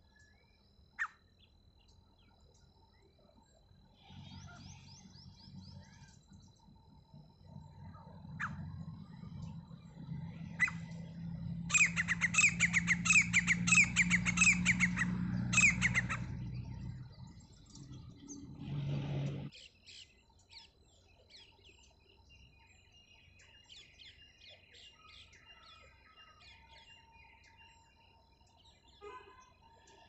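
Grey francolin calling: a fast run of loud, closely repeated notes lasting about four seconds, near the middle. Faint chirps of other birds come and go, and a low rumble runs under the first two-thirds.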